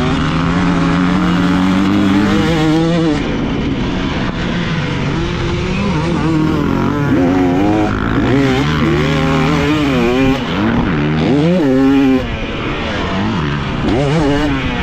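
Motocross dirt bike engine ridden hard around a track: held steady for the first few seconds, then revving up and down over and over as the throttle opens and shuts through turns and jumps, with a short drop-off near the end, over constant wind rush.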